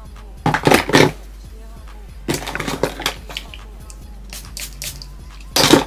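Holding hairspray sprayed onto the hair in three short hissing bursts, the last one near the end the loudest.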